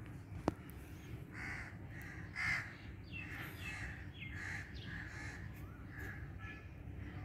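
Crows cawing, a harsh call roughly once a second over a low background rumble, with one sharp click about half a second in.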